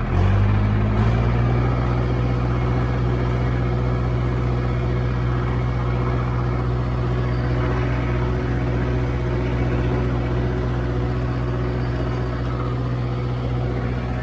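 Kubota MU4501 tractor's four-cylinder diesel engine revving up from its 900 rpm idle right at the start, then running steadily at raised rpm.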